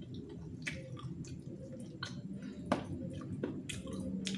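Close-up mouth sounds of eating chicken feet by hand: chewing and sucking the meat and skin off the bones, with wet smacks and scattered clicks. A sharper click comes about two-thirds of the way through.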